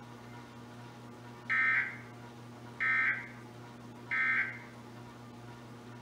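Emergency Alert System end-of-message (EOM) data bursts: three short, harsh two-tone digital squawks about a second apart, marking the end of the alert. Heard through a TV speaker, over a low steady hum.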